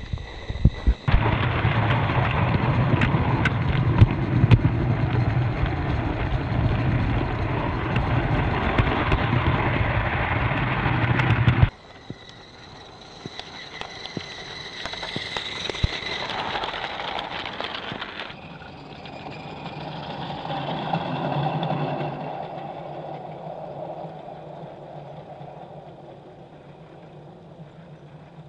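Train of live-steam garden-railway log cars rolling close past behind a modified Accucraft Ruby, a dense clatter and crackle of small wheels on the track. This cuts off abruptly about 12 seconds in. It gives way to the quieter running of the train, which swells and fades twice.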